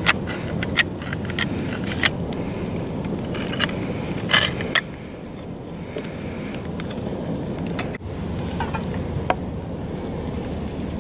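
Ring-pull lid of a can of baked beans being popped and peeled open: a sharp click as the seal breaks, a few more metallic clicks, then a louder run of clicks and crackling about four seconds in as the lid tears free. A steady low rumble runs underneath.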